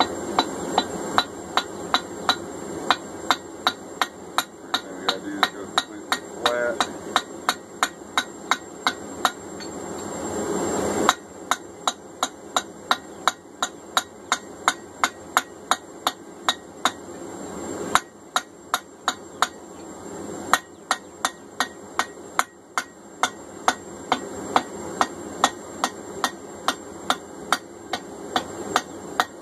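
Hand hammer striking hot steel held in tongs on an anvil: a steady run of sharp metallic blows, about two to three a second, with short pauses about a third and two-thirds of the way in, each followed by a heavier strike.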